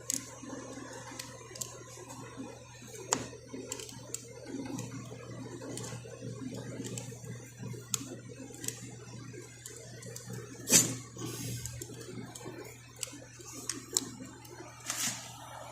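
Scattered light clicks and taps at an uneven pace, with a louder knock about eleven seconds in, from handling tools and fittings on a boat deck.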